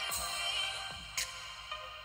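Electronic music with sharp beats playing through a bare oval speaker driver that is out of its enclosure and hanging on its wires, driven by the JBL Flip 5's amplifier.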